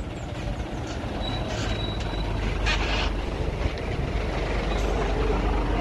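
Hino truck's diesel engine running as the truck pulls past close by, its rumble growing louder, with a short hiss near the middle.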